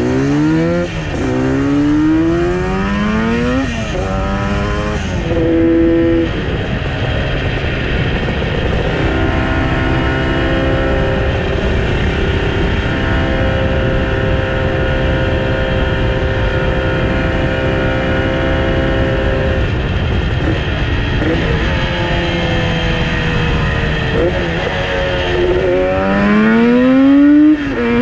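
Yamaha RD350 two-stroke parallel-twin, newly fitted with CNC-machined performance cylinder heads, accelerating through the gears. Its pitch climbs and drops at each shift, holds a steady note while cruising, then climbs again near the end.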